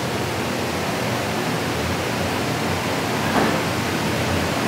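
Chicken pieces deep-frying in a wok of hot oil: a steady sizzle.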